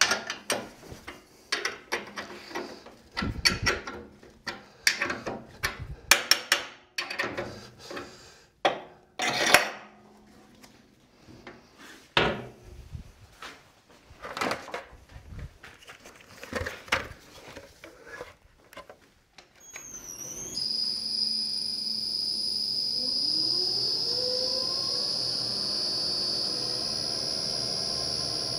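Irregular metal clanks and knocks as parts of a coring knife assembly are handled and fitted on a bowl coring machine. About twenty seconds in, the machine's motor starts with a high steady whine, and a tone rises as the log spins up to speed.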